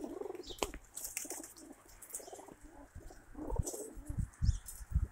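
Domestic pigeons cooing, several birds overlapping, with a few low thumps about four seconds in.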